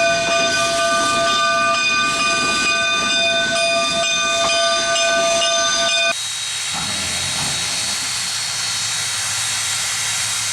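Steam locomotive chime whistle blowing one long blast of several notes, which cuts off suddenly about six seconds in. A steady hiss of escaping steam follows.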